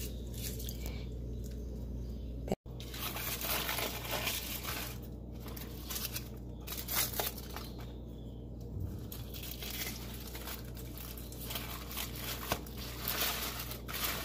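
Aluminium foil crinkling and tearing as it is peeled by hand and cut with a knife from a pressure-cooked carton of condensed milk, in irregular rustles and crackles. The sound cuts out for an instant about two and a half seconds in.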